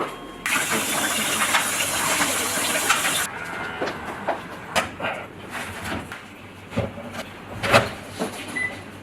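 Food sizzling on a hot stone, a loud hiss for about three seconds that then dies down, followed by scattered clicks and knocks.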